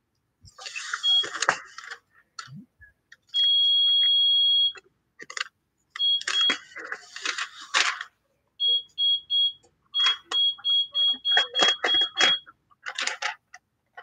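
High electronic beeps from a heat press control panel: a single long beep about three and a half seconds in, then a run of short beeps about three a second. Between and under the beeps, a clear plastic masking sheet crinkles and rustles as it is handled.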